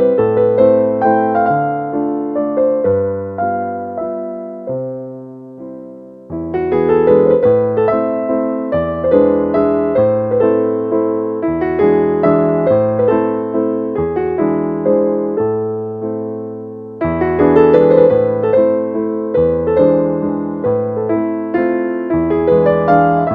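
Background music: a gentle piano piece, melody over chords, which dies away about six seconds in and then starts again.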